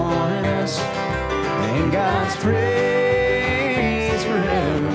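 Live country band playing, with acoustic guitar under a melody of long held, bending notes.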